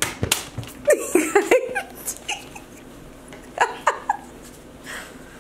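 People laughing and giggling in short bursts, with a few sharp slaps or flicks right at the start.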